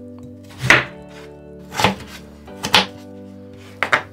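Kitchen knife cutting a raw peeled potato on a wooden cutting board: four separate cuts about a second apart, the last a quick double stroke. Soft background music with held notes plays underneath.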